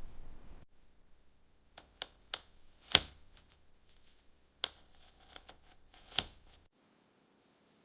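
A series of sharp, separate clicks, about seven of them scattered over several seconds, the loudest about three seconds in, over a faint background hiss that drops away near the start.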